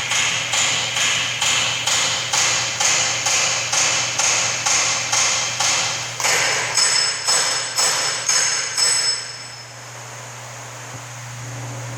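TIG welding arc pulsing in a steady rhythm, about three pulses a second. The arc stops about nine seconds in, leaving the welding machine's steady hum.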